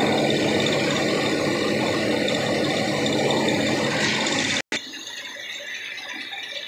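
Tractor-powered rice mill running: belts, pulleys and the hulling machinery give a loud, steady mechanical clatter. About two-thirds of the way through it cuts off abruptly, leaving only a much quieter background.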